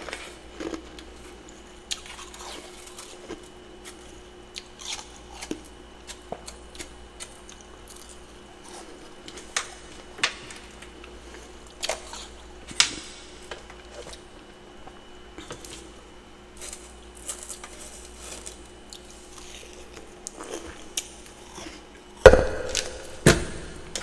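Scattered soft clicks and scrapes from picking at freezer frost and a spoon touching a plastic bowl, over a faint steady hum. Near the end come two loud thumps about a second apart as the frost-lined mini freezer's door is shut.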